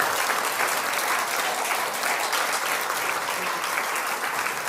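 Congregation applauding: steady, dense clapping from many hands welcoming two guests onto the stage.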